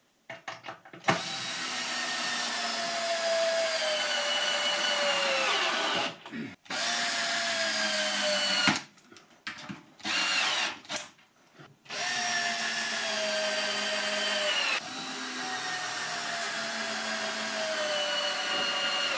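Hand-held power drill driving screws overhead into the ceiling through a plywood rack. It runs in several long stretches and one short burst, and its motor whine sinks in pitch through each run as the screw draws in under load.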